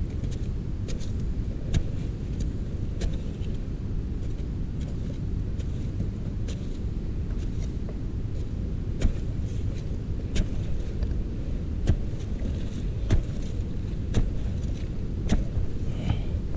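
A digging tool striking into hard termite-nest earth, with sharp knocks about once every second or so over a steady low rumble.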